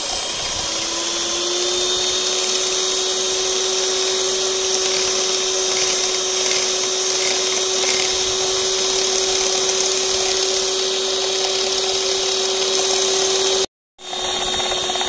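Electric hand mixer running at top speed, its beaters whipping instant coffee, sugar and cold water into dalgona foam: a steady motor whine that rises slightly in pitch over the first second or so, then holds. The sound cuts out for a split second near the end.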